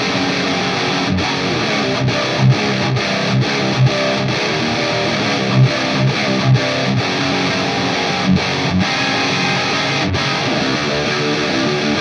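High-gain distorted electric guitar playing heavy rhythm riffs alone, with no backing track: repeated punchy low notes broken by a few brief stops. The chain is an ESP LTD NW-44 with a Bare Knuckle Aftermath pickup, into an Orange Rockerverb 50 MKIII head on its lead channel and an Orange 4x12 V30 cabinet impulse response. The tone is big, warm and sort of round, less tight in the mids.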